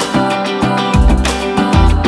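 Outro music: a guitar track over deep bass notes that slide down in pitch.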